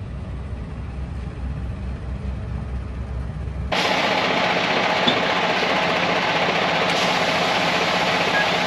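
A vehicle engine's steady low rumble. Nearly four seconds in, it cuts abruptly to a louder, steady rushing noise.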